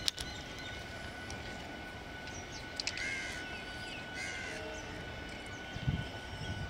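MEMU electric train approaching slowly on curved track, a steady low rumble. A bird calls twice over it, about three and four seconds in.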